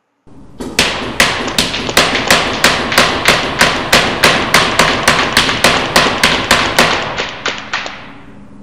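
Planet Eclipse EMF100 magfed paintball marker with a 14-inch barrel and rifled insert firing about twenty shots in steady semi-auto, roughly three a second, each shot echoing in a large indoor arena.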